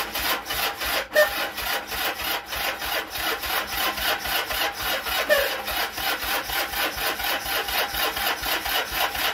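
Old motorcycle engine turning over on its electric starter with the choke on, a steady, even cranking of about five beats a second that does not catch and run. The restored battery is spinning the starter strongly.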